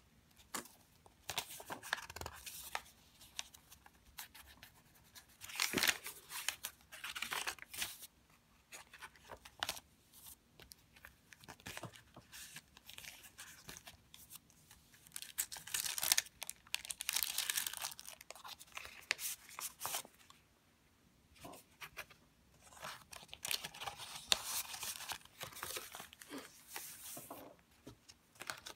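Paper pages of a handmade junk journal being turned and handled, rustling and crinkling in several bursts with quieter pauses between them.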